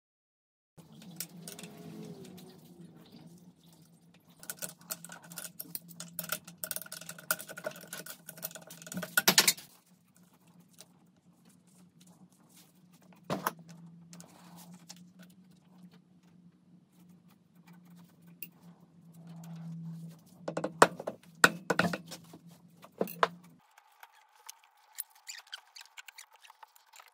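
Metal engine parts clinking and clattering as they are handled, over a steady low hum. The hum stops a few seconds before the end and a higher steady tone takes over.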